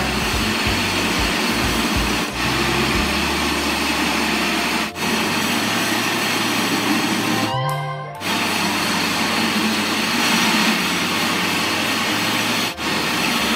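Marble floor-grinding machine running, its electric motor turning abrasive grinding stones over wet marble: a loud, steady grinding noise with a few very short breaks.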